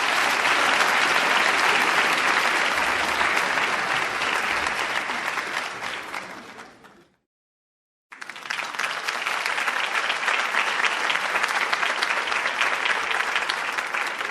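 Crowd applause, many hands clapping with no shouts or cheers. It fades out about seven seconds in, and after a second of silence a second round starts abruptly, with individual claps more distinct.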